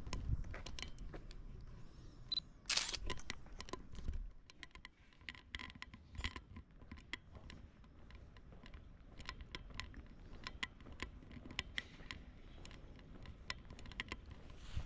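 FUJIFILM X100V camera being handled and fired: a short high beep about two and a half seconds in, then a louder shutter click, amid a run of small irregular clicks and taps.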